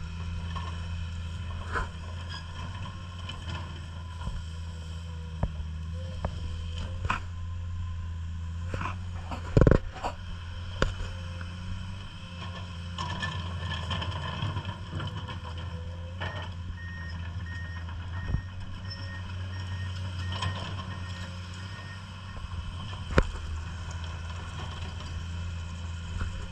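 Komatsu PC210 hydraulic excavator's diesel engine running steadily under work, with scattered knocks and clanks from the machine, the loudest a sharp knock about ten seconds in.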